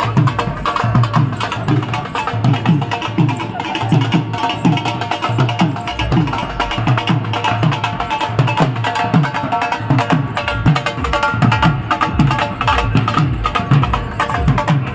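Rajasthani folk dance music: dhol drums beating a quick, steady rhythm under a melody line.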